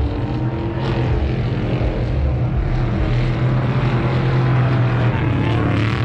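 A motor vehicle's engine running at steady revs, holding one low pitch that swells a little in the middle.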